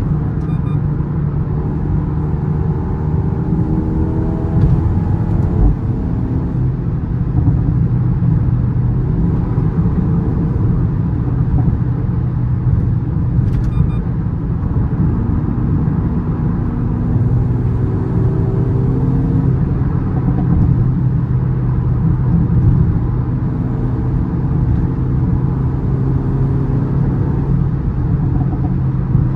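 Mercedes-AMG A35's turbocharged 2.0-litre four-cylinder engine pulling the car along on the road, its drone rising and falling in pitch as it speeds up and eases off.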